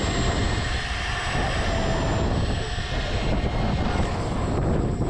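Arrows RC Viper 50mm electric ducted-fan jet running with a steady high whine over heavy wind rumble on the microphone; the whine fades near the end.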